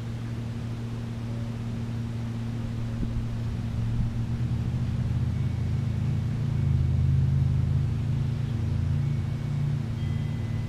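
Steady low engine hum of a motor vehicle; its rumble grows louder from about four seconds in and eases off again near the end.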